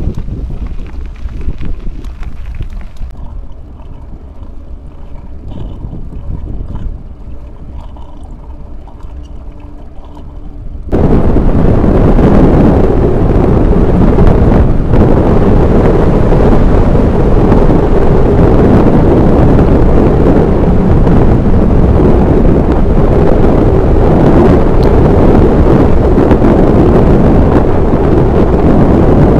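Wind rushing over the microphone of a camera riding on a moving bicycle. For the first eleven seconds or so it is quieter and uneven; then it comes in suddenly as a loud, steady rush as the bike runs down a paved road.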